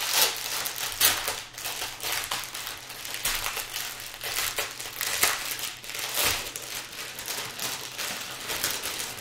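Small plastic bags of diamond-painting drills crinkling and rustling as they are handled, an irregular run of crackles.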